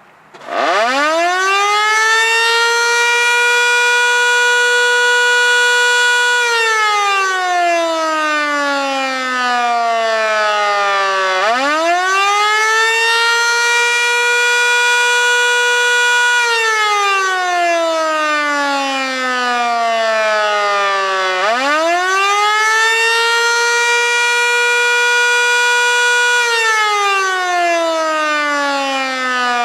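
Federal Signal Model 2 electromechanical fire siren sounding the Attack signal on its weekly test. It starts about half a second in, climbs quickly to a steady high tone, holds it for about six seconds, then slides down over about five seconds before climbing again, three times over.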